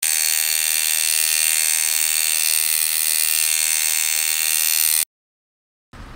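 Tattoo machine buzzing steadily, starting abruptly and cutting off sharply about five seconds in.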